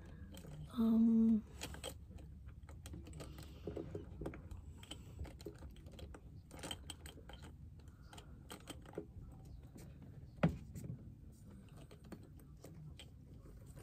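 Small makeup items clicking and clattering irregularly while someone rummages through a makeup container for eyeliner pencils. There is a short hum about a second in, and a sharper click near the end.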